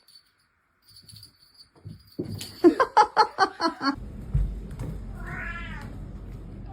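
A pet animal vocalising: a quick run of about eight short pitched calls, then one longer call that rises and falls.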